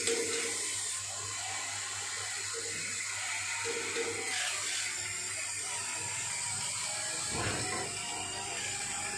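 The small electric gear motors of a toy remote-control excavator whir in short spells as its boom swings and its bucket lowers.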